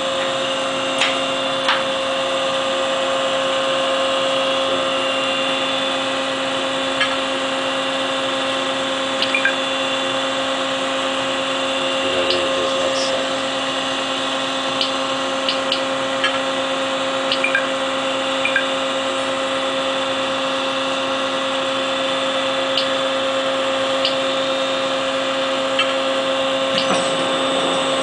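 Mori Seiki SL2 CNC lathe running with its spindle turning at a steady speed, driven by a Fanuc S12 main motor: a steady machine hum holding one pitch, with a few faint clicks.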